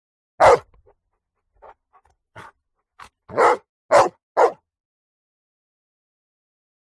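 Dog barking: one loud bark, a few short faint sounds, then three loud barks in quick succession about half a second apart, with dead silence between them.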